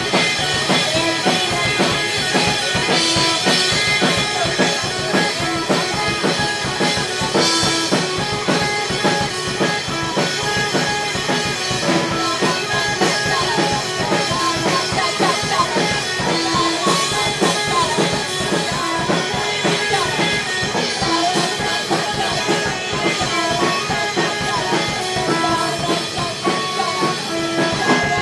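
Live rock band playing: drum kit with a fast, steady beat under guitars, loud and continuous.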